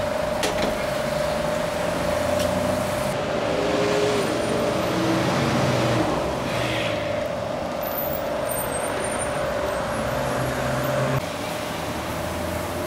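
Road traffic passing on a busy street, cars and trucks rumbling, over a steady high hum.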